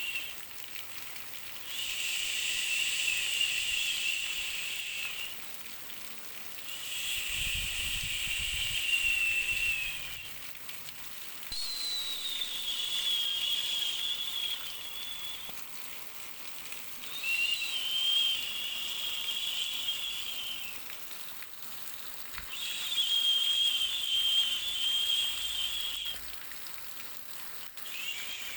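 Looped white-noise hiss that swells and falls back in a regular rhythm: bursts of about three to four seconds with short dips between them, each carrying a faint wavering whistle-like tone.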